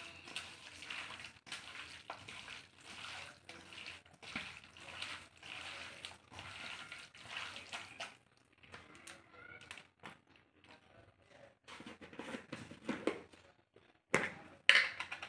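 Wet squelching of a bare hand kneading chicken pieces in an onion and spice marinade in a steel bowl. It comes in a steady rhythm for the first half, then gets sparser, with a couple of sharp louder knocks near the end.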